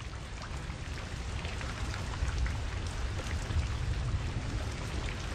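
Steady rain falling, many small scattered drop impacts over a low rumble.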